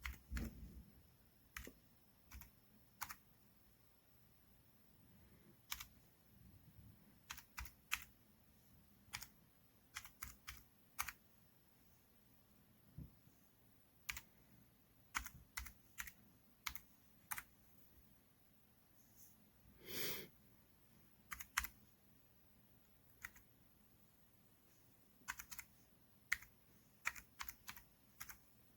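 Keys of a wireless numeric keypad with round keycaps being pressed: scattered single clicks and short clusters of clicks separated by quiet pauses. A brief, louder noise comes about twenty seconds in.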